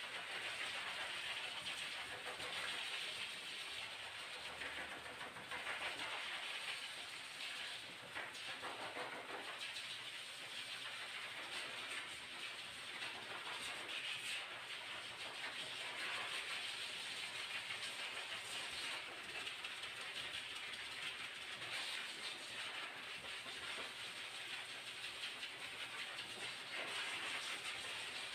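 Pet grooming blow dryer running: a steady rush of air through its hose nozzle, swelling and easing slightly, as it dries a dog's coat.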